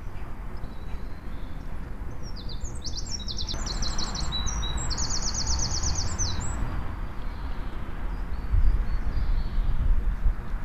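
A songbird sings a fast run of high, rapidly repeated chirping notes for about four seconds, starting about two seconds in, over a steady low outdoor rumble.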